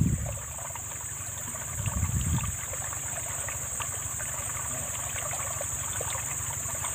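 Steady outdoor ambience: a constant high insect drone over a low rumble, with faint trickling water. A brief low swell of sound comes about two seconds in.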